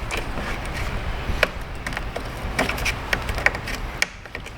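Plastic wiring-harness clips being worked loose by hand: several sharp clicks and snaps with handling noise in between.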